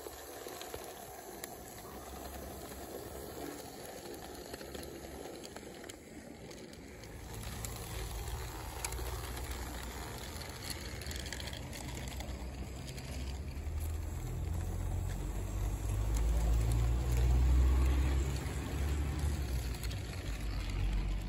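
Garden-railway model locomotive hauling a short train of small wagons, its wheels rolling and rattling along the rails. Under it a low rumble rises about seven seconds in and is loudest near the end.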